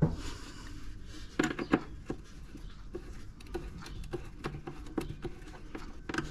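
Light clicks and taps of a screwdriver and fingers handling a hollow plastic weather-station housing. There is a knock at the start and a louder pair of clicks about a second and a half in.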